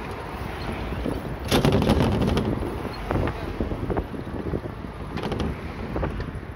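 Wind buffeting a phone microphone during a bicycle ride: a steady rush with scattered light knocks and rattles, and a stronger gust about one and a half seconds in.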